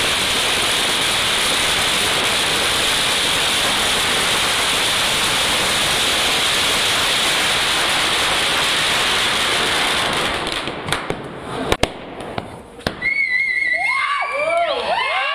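A long string of firecrackers going off in a dense, continuous crackle. It thins to a few separate bangs about ten seconds in. Near the end, whistles and shouts from the onlookers come in.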